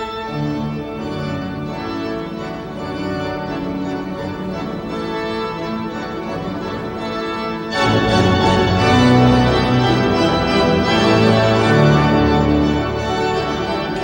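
Cathedral pipe organ playing held chords. About eight seconds in, a louder, fuller passage with deep bass notes comes in.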